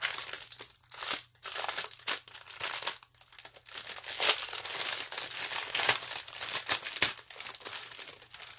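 Small plastic bags of resin diamond-painting drills crinkling as they are handled and sorted, in quick irregular rustles.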